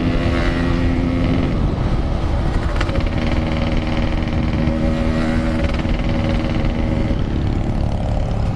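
Yamaha RX King 135cc two-stroke single-cylinder motorcycle running under way, its exhaust loud. The engine note holds mostly steady, shifting in pitch about a second and a half in and again near the end, with wind rumble underneath.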